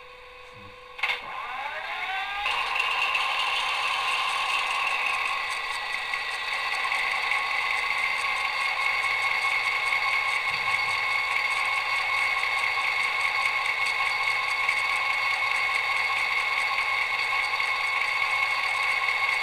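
Sound decoder of a Roco model of the SNCF BB 67349 diesel locomotive playing through its small onboard speaker: a click about a second in, then a rising whine as the simulated diesel engine spins up. It then settles into a steady engine sound made of several constant tones, with a slight shift in pitch a few seconds later.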